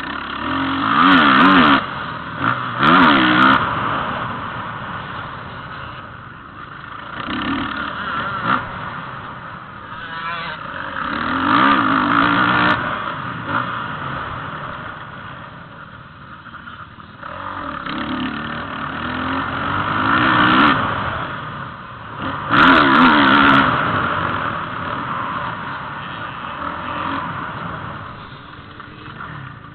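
Motocross bike engine revving up and dropping back repeatedly as it rides the dirt track, with several loud surges of throttle.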